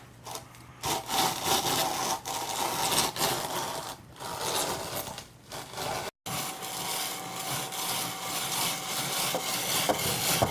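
Spiral potato cutter machine cutting a potato into a tornado spiral, a continuous rasping, scraping cut that drops out briefly about six seconds in.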